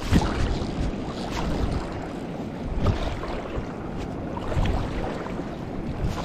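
Shallow water sloshing and lapping close to the microphone, with irregular splashy surges every second or two, over a low rumble of wind on the microphone.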